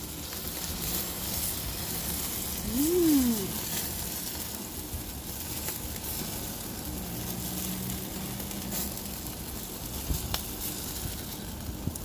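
Skewered pork mask sizzling and crackling on a grill as a thick sauce is brushed on and drips onto the flames. About three seconds in, a brief tone rises and falls in pitch over the sizzle.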